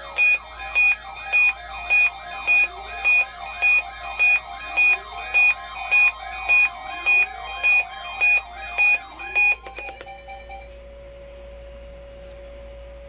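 Reecom NOAA weather radio sounding its alert for a weekly test: about seventeen loud, evenly spaced two-tone beeps, close to two a second, over a steady warning tone. The beeping stops about nine and a half seconds in, and the steady tone ends a second later, leaving a low hum.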